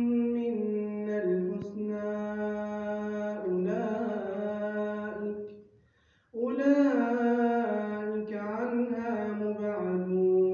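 Melodic Quran recitation (tajweed): one voice holding long, drawn-out notes that step and glide between pitches, with a brief pause for breath about six seconds in.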